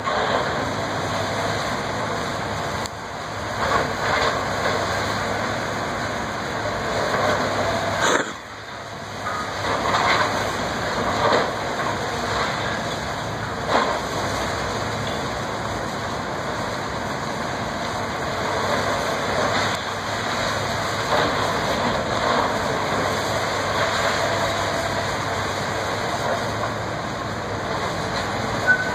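High-reach demolition excavator running steadily while it breaks up a brick building. Intermittent crashes and clatter of masonry and debris come through, most of them in the middle stretch, with a sharp clank near the end.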